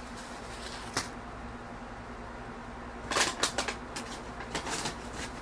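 Dry tortilla chips and the paper under them crackling as a hand picks through the pile. There is a single click about a second in, a quick run of sharp crackles about three seconds in, and a few more a second later.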